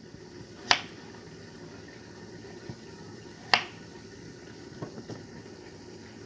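Kitchen knife cutting raw potato on a wooden cutting board: two sharp knocks of the blade striking the board, about three seconds apart, then a few fainter taps near the end.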